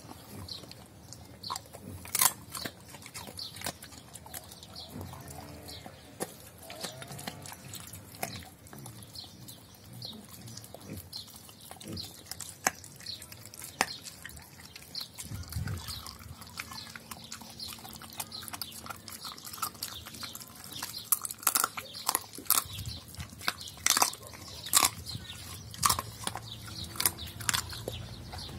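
Doberman pinscher chewing food close up: irregular wet crunches and sharp bites, coming more often in the second half.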